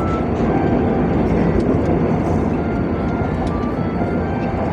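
A steady, loud rumbling noise with no rhythm or change, with a few faint short tones on top.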